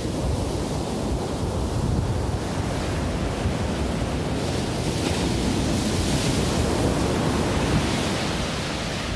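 Ocean surf breaking on a sandy beach, a steady rush of waves, with wind buffeting the microphone.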